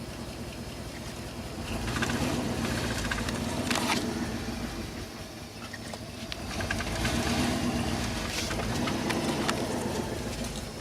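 Vehicle engine and road noise, a steady engine tone that swells louder twice for a few seconds each.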